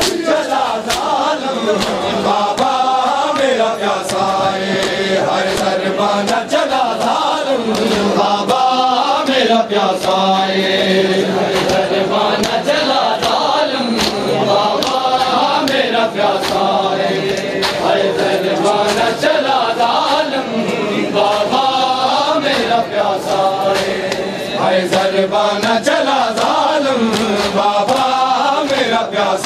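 Men chanting an Urdu noha (Shia lament) together, with rhythmic chest-beating (matam) slaps keeping time under the voices.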